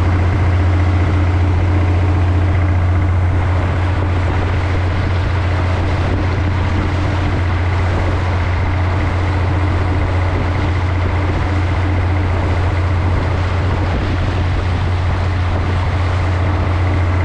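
Working fishing boat's engine running steadily under way, a constant low drone, with the rush and splash of water along the hull.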